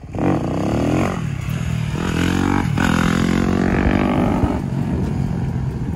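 Dirt bike engine revving hard under acceleration as the rider goes for a wheelie. The pitch climbs, drops sharply with a shift about a second in and again just before three seconds, then holds and eases off near the end.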